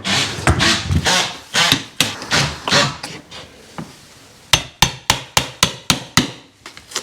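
Hammer work chopping out a recess in a wall for a socket box: irregular knocks and scraping for the first few seconds, then a quick run of about seven sharp hammer blows, some four a second, about halfway through.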